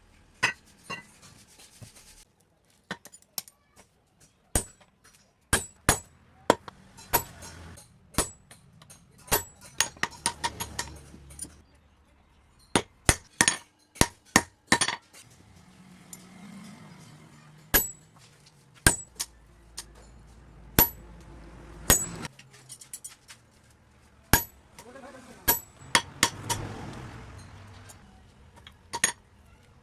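Hand hammer striking steel on an anvil, irregular sharp ringing blows, sometimes several in quick succession, as a basula (carpenter's adze) blade is forged.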